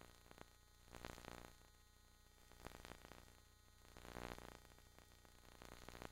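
Near silence: faint steady hiss with a low hum underneath.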